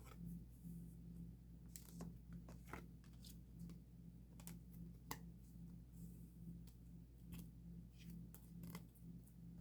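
Photocards being handled and sorted: faint, scattered clicks and brief rustles at irregular intervals, over a steady low hum.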